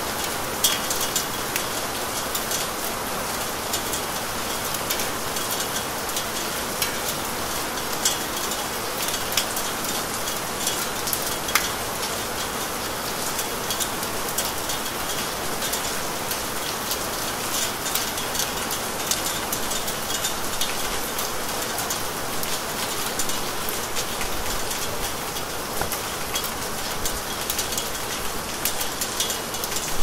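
Steady rain falling: an even hiss with many individual drops ticking sharply over it.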